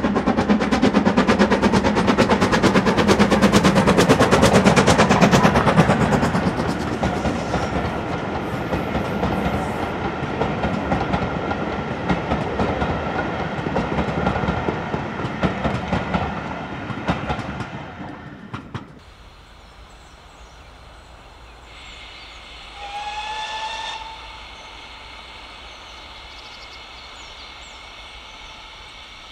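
GWR Manor-class 4-6-0 steam locomotive 7802 Bradley Manor working hard past with a train of coaches: loud, rapid chuffing exhaust beats, then the coaches rattling by and fading away. After a sudden cut it goes quiet, with a short distant whistle a few seconds later.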